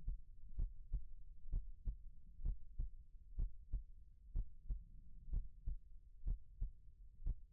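Slow, steady heartbeat, a double thump (lub-dub) repeating about once a second, around 63 beats a minute, over a faint low hum.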